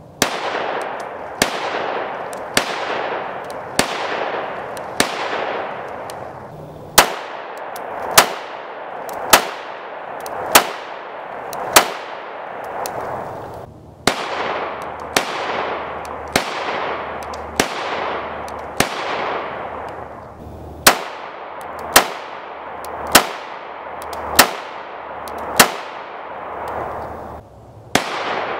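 5.7x28 pistols fired in slow, steady strings, about one shot every second and a bit, each sharp crack followed by a long echoing tail. The Smith & Wesson M&P 5.7 fires first. A short break about fourteen seconds in leads into the PSA Rock 5.7, and the Ruger 57 starts near the end.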